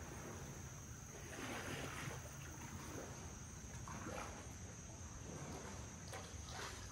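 Kayak paddle strokes: the blades dip and swish through the water three times, about two and a half seconds apart.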